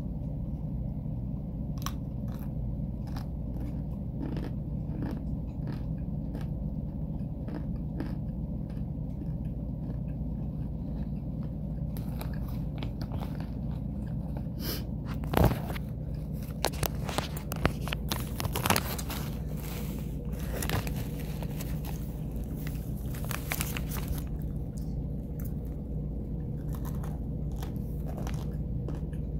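Close-up chewing and crunching of homemade cornstarch "starch bites": sparse crisp crunches at first, then a denser, louder run of crunches through the middle, thinning out near the end. A steady low hum runs underneath.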